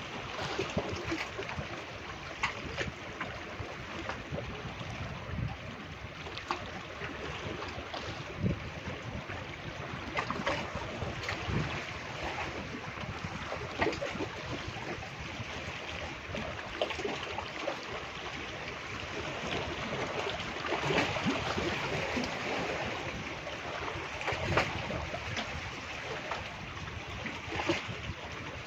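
Calm sea lapping and washing against shoreline rocks: a steady wash of water with small irregular slaps.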